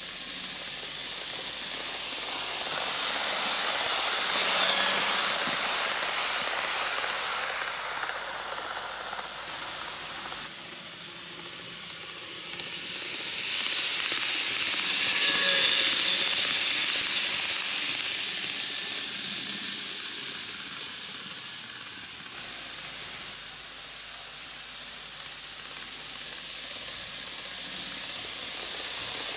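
KATO N-gauge E4 series 'Max Toki' eight-car model shinkansen running on canted TOMIX track: a steady hissing rattle of its wheels on the rails. It swells twice as the train comes round near the camera, about four seconds in and again about fifteen seconds in, and fades between, then grows again near the end.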